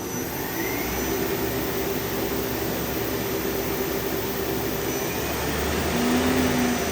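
Samsung SL-2000M CNC lathe's main spindle spinning up to 2500 RPM and running at speed: a steady whirring hum that grows louder over the first second, with a short rising whine about half a second in.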